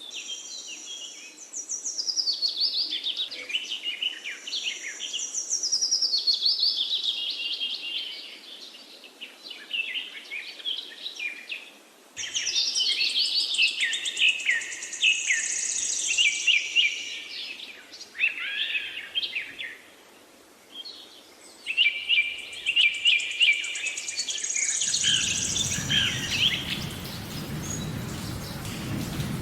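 Several wild birds singing and chirping at once in a forest: quick high trills and chirps that come in bursts with short lulls between them. Near the end a low rumbling noise joins in underneath the birdsong.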